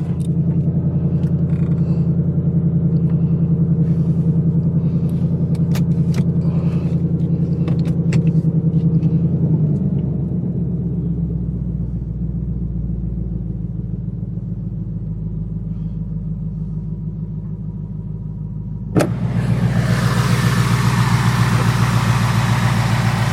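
Ford Mustang GT's Coyote V8 idling steadily on a cold engine, its idle dropping lower and settling about ten seconds in. About nineteen seconds in a sharp click comes, and a broad hiss joins the engine hum.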